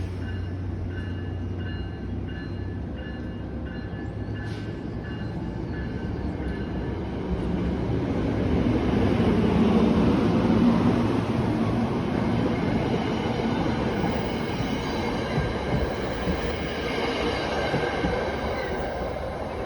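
New Jersey Transit ALP-45DP dual-mode locomotive pulling out under diesel power, its engine and the train's wheels rumbling louder as it gets under way, loudest about halfway through, then the cars rolling on along the rails. A thin high ringing tone repeats about twice a second during the first several seconds.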